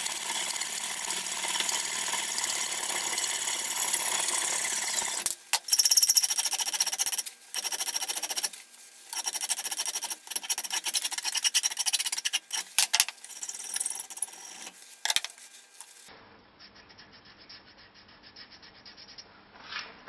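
Hacksaw cutting through a steel bar clamped in a vise, in steady back-and-forth strokes. About five seconds in it gives way to separate strokes of a flat file across the freshly cut steel end, which stop about four seconds before the end, leaving only faint ticks.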